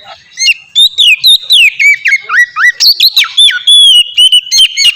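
Oriental magpie-robin (kacer) singing its loud, open ngeplong song: a fast run of clear whistled notes that sweep up and down in pitch, starting about half a second in.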